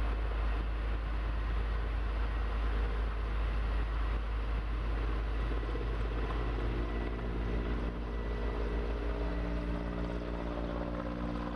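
An engine running steadily under a heavy low rumble, with its droning pitched hum growing clearer about halfway through.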